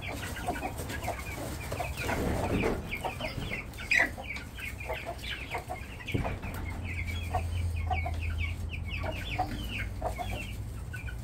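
A flock of Vorwerk chickens, adults and young birds, clucking and chirping, with many short high calls throughout.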